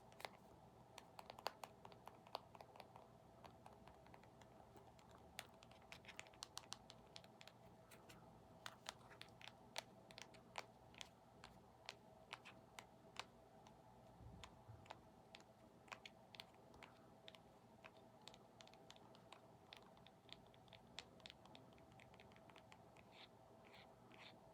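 Faint ASMR tapping: light, irregular clicks and taps on a small object, several a second with short pauses.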